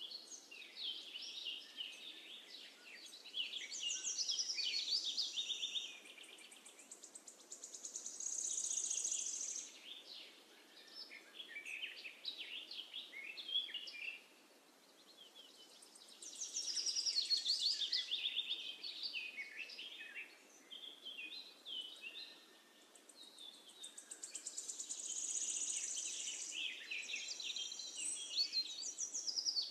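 Songbirds chirping and trilling, several calls overlapping, in waves that swell and fade every few seconds.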